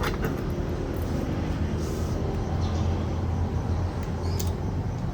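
Scissors cutting into plastic toy packaging, a few faint snips, over a steady low hum.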